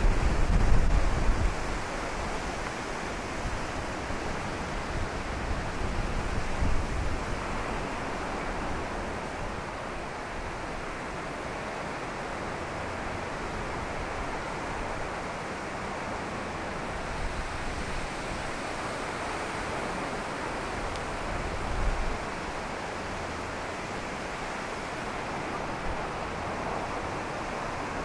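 Steady rush of strong wind over choppy, white-capped Lake Huron surf, with gusts hitting the microphone at the start, around six to seven seconds in and again around twenty-two seconds.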